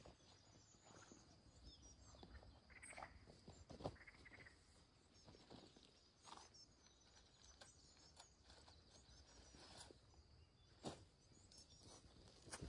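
Near silence: quiet outdoor ambience with scattered soft clicks and ticks, and two brief faint chirps about a second apart, some three seconds in.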